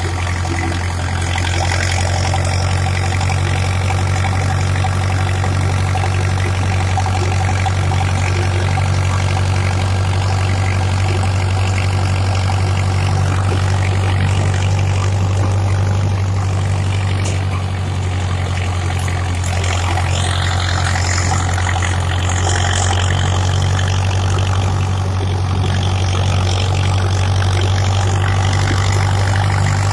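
Steyr 8073 tractor's diesel engine running steadily with a constant low hum, held at an even speed.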